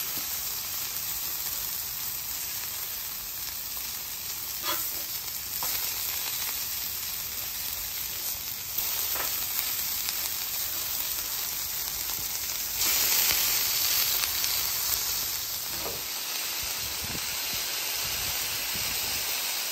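Chicken breasts sizzling steadily in oil on a hot flat-top griddle, with a few short scrapes of a steel spatula as the pieces are flipped. The sizzle swells louder for a couple of seconds just past the middle.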